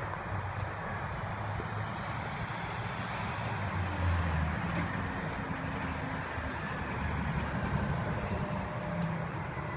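Sterling garbage truck's diesel engine running, a steady low drone.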